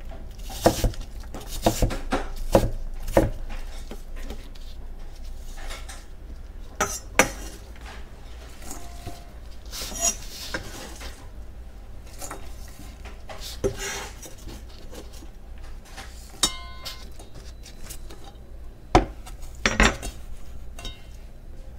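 Cutco kitchen knife chopping diced apple on a wooden cutting board, five quick strokes in the first few seconds. Then scattered knocks and scrapes as the blade sweeps the pieces together, with a brief metallic ring past the middle and two loud knocks near the end as they go into a stainless steel bowl.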